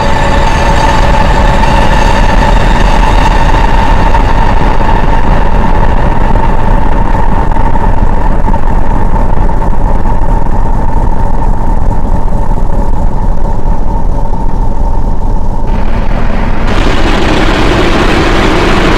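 Dark ambient electronic drone from a Maneco Labs Grone synth run through a Mutable Instruments Clouds granular processor: a loud, dense low rumble under a steady high tone. Near the end the tone drops away and a brighter hissing layer swells in.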